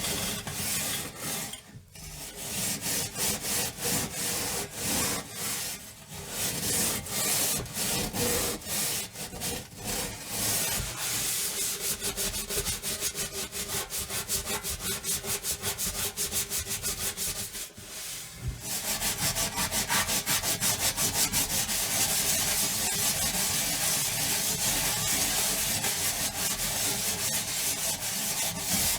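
Someone scrubbing an oven: rapid back-and-forth scrubbing strokes, with short breaks about 2, 6 and 18 seconds in. After the last break the strokes come faster and more evenly.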